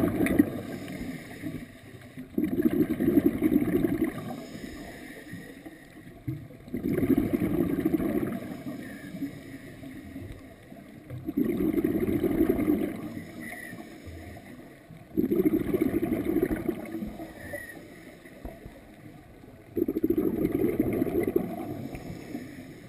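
Scuba regulator exhalations underwater: bursts of bubbling, each a second and a half to two seconds long, coming about every four to five seconds in a steady breathing rhythm.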